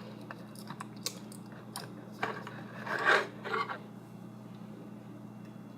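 Scattered scrapes, clicks and rubbing of plastic being picked at and pulled as a seal is worked off a new contact lens solution bottle, with the loudest scraping about three seconds in.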